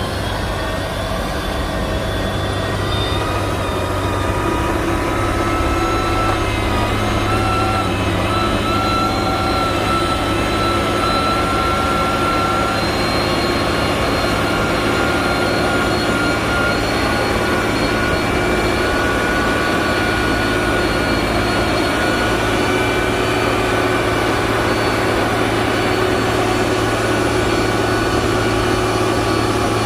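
Heavy diesel engine of road-construction machinery running steadily under load, with a low drone and a faint higher whine; it grows a little louder over the first few seconds, then holds steady.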